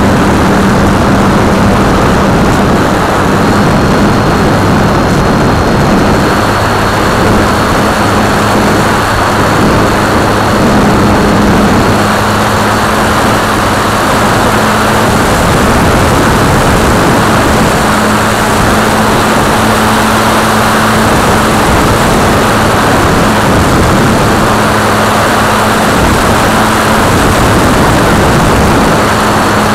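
Electric motor and propeller of a Multiplex FunCub RC plane in flight, picked up by the onboard camera: a steady hum under loud wind rush, its pitch stepping up and down a little with the throttle.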